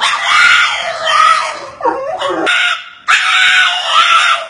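Bulldog making loud, drawn-out cries in two long calls, the second beginning about three seconds in. It is his protest at missing out on a walk.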